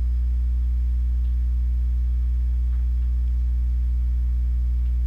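Steady low electrical mains hum with a stack of evenly spaced overtones, and a few faint clicks.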